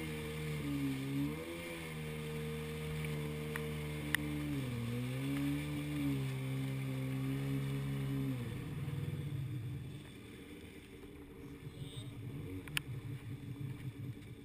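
Jet ski engine running at a steady cruise, its pitch dipping twice as the throttle eases and picks up again. About eight seconds in, the steady tone breaks up into a lower, rough, uneven running as the craft slows off the throttle.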